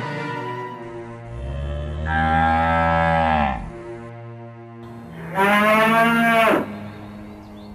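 Two cattle moos over background music: a long, low one of about two seconds, then a shorter, higher and louder one, each dropping in pitch at the end.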